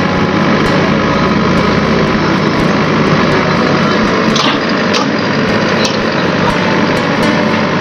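An engine running steadily, with a few faint ticks about halfway through.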